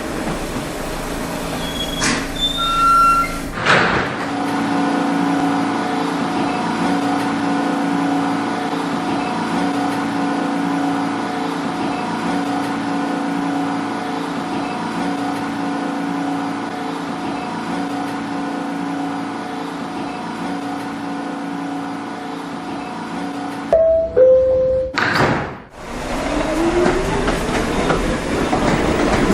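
Subway train standing with a steady electrical hum, then a two-tone chime stepping down in pitch about 24 seconds in, followed by the traction motors whining upward in pitch as the train starts to move.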